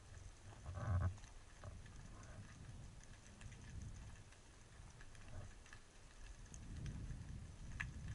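Faint underwater ambience through a camera housing on a speargun: scattered small clicks and crackles over a low sloshing rumble that swells near the end. A short, louder low sound comes about a second in.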